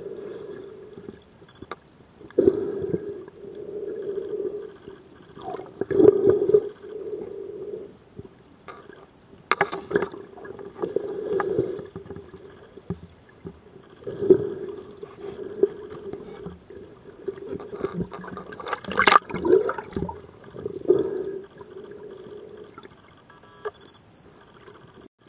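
Scuba regulator exhaust bubbles gurgling in bursts every few seconds as a diver breathes, heard muffled through an underwater camera housing, with a sharp click about nineteen seconds in.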